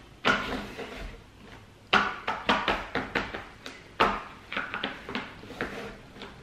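Wooden stacking-tower blocks clacking and knocking as hands tap and press the stacked tower inside its cardboard sleeve to square it up: about a dozen sharp, irregular knocks, some in quick runs.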